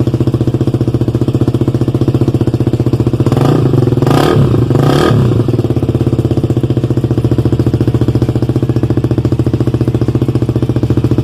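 KTM Duke motorcycle engine idling through its exhaust, with two quick throttle blips about three to five seconds in before it settles back to idle.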